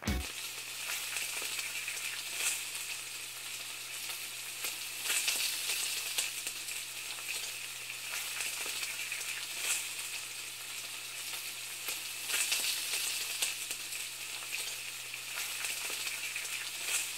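Steady sizzling hiss with scattered crackles, over a low steady hum.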